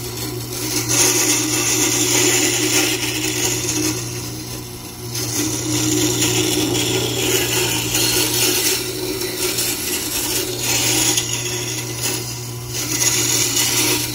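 Tormek wet grinding wheel running with a steady motor hum while a Robert Sorby bowl gouge held in a jig is worked across the water-fed stone, giving a gritty hiss of steel being ground that swells and fades with each pass. The stone is graded to its rough side, reshaping the new gouge's bevel on its first grind.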